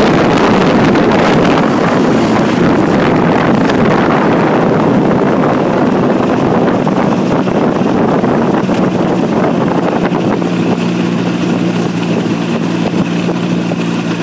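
Microlight trike's engine and propeller running, with wind rushing over the pod as it rolls along the runway and slows down. About ten seconds in the rush fades and the engine settles to a steady idle.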